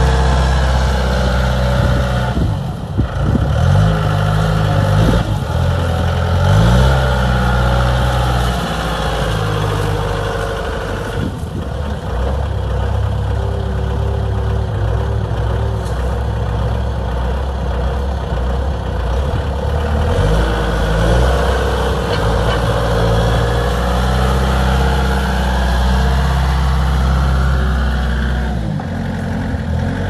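2007 Bobcat A300 skid steer's diesel engine running as the machine drives and turns, its pitch rising and dropping several times as the revs change.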